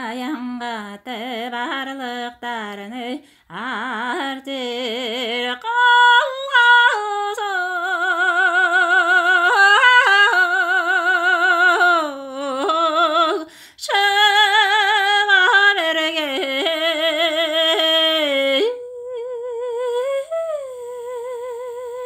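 A woman singing a Tuvan folk song unaccompanied: one voice with wide vibrato on long held notes. The melody moves up after about five seconds and closes on a long held note with a small bend in it.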